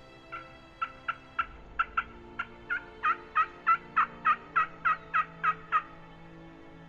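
A run of wild turkey hen yelps, about eighteen short notes, sparse at first, then settling into about three a second and getting louder before stopping near the end. Faint background music runs underneath.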